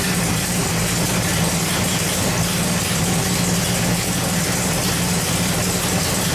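Big-block Chevrolet 540 cubic-inch V8 idling steadily on the engine dyno.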